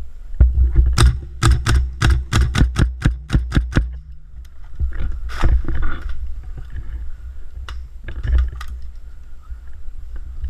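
A rapid run of sharp snaps, about four a second for some three seconds, then two shorter clusters later on, over a steady low rumble.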